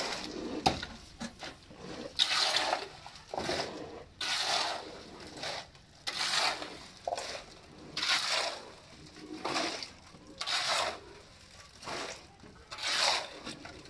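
Steel shovel scraping across the floor and scooping wet concrete into buckets, a wet scrape and slop repeated about once a second.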